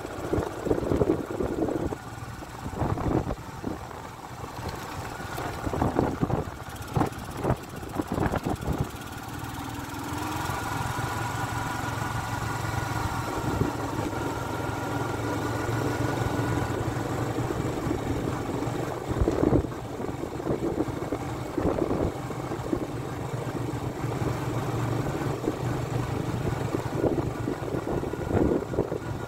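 Small motorcycle engine running while riding, heard from on the bike. Irregular knocks and jolts over the first eight seconds or so, on a rough gravel road, then a steadier engine note.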